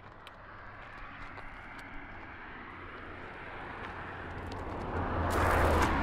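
A motor vehicle passing on a road: a low engine hum and rushing tyre noise that build steadily, are loudest about five and a half seconds in, then start to fade.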